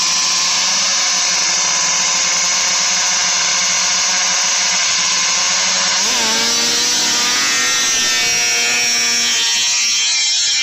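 Vintage snowmobile's two-stroke engine running at idle, then given a quick rev about six seconds in and held at a higher steady pitch.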